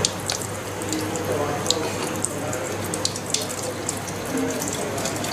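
Tap water running and splashing over the new carbon filter cartridge assembly as it is rinsed, with a few sharp splatters.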